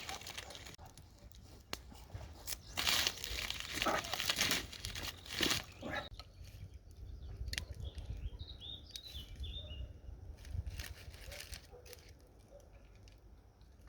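Crinkling and rustling handling noise over the first six seconds, loudest from about three seconds in. A bird chirps a few times around the middle, then it quietens.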